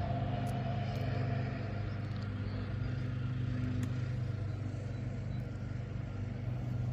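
Motor vehicle engine running steadily with a low hum.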